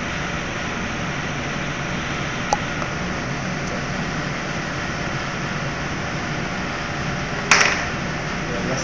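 Steady hum of kitchen ventilation, with one sharp click about two and a half seconds in and a short clatter near the end as a small carving knife is set down on the plastic cutting board.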